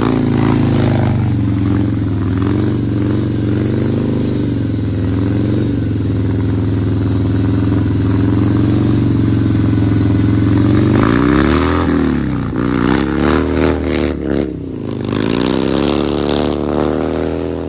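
Harley-Davidson V-twin running through a Vance & Hines Upsweep exhaust, held at high revs in a burnout with the rear tyre spinning. The revs stay steady for about ten seconds, then are blipped up and down several times before settling again near the end.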